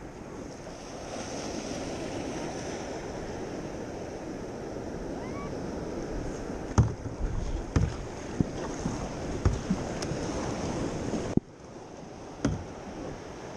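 Ocean surf breaking and washing around a kayak, with wind on the microphone. Several sharp knocks come in the second half.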